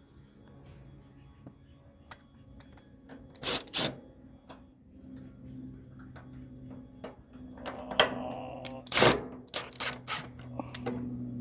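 Irregular sharp metallic clicks and knocks of hand work on a mini-split condenser: a loud pair about three and a half seconds in and a flurry of them from about eight to ten seconds in, over a faint steady hum.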